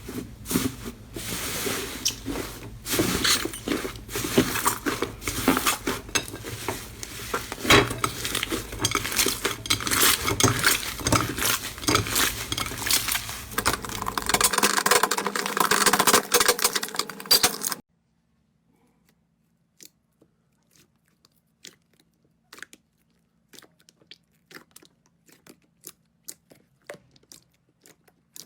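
Slime being squeezed and worked by hand, making dense crackling, clicking and popping. It cuts off abruptly about 18 seconds in, and only faint, sparse clicks follow.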